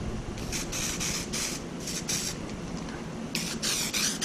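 Aerosol can of dark gray SprayMax primer spraying in short hissing bursts, a few brief ones first and then longer, closer-spaced ones near the end, sprayed through a hole in cardboard to leave a soft edge.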